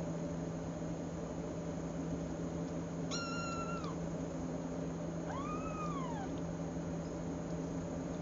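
A cat meows twice: a short, level meow about three seconds in, then a meow that rises and falls in pitch a couple of seconds later, over a steady low hum.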